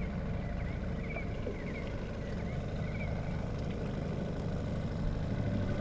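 An engine running steadily with a low rumble, with faint short chirps over it during the first few seconds.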